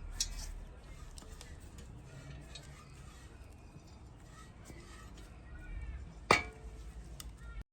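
A few light clicks and taps over a low rumble, with one sharp clink about six seconds in.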